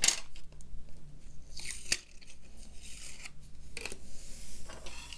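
Clear adhesive tape being peeled off paper as a taped-down plastic card is lifted away: several short rasping tears, the sharpest at the very start and another about two seconds in that ends in a click.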